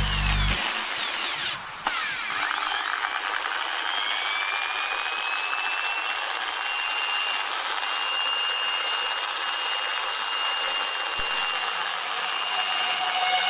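Electric drill starting up: its whine rises for a couple of seconds, then holds steady over a rough hiss as it runs at speed. A snatch of electronic music ends just at the start.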